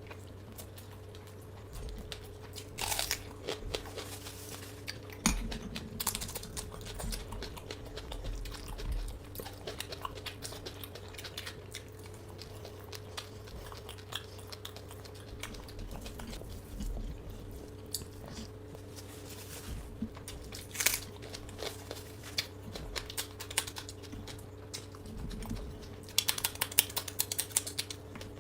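Close-up chewing and biting of fried food, with wet mouth sounds and irregular crunchy bites; a quick run of crunches comes near the end.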